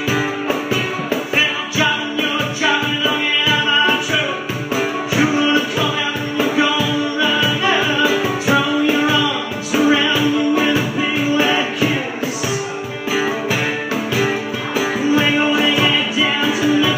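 Live acoustic band music: strummed acoustic guitar and picked banjo over a steady cajon beat.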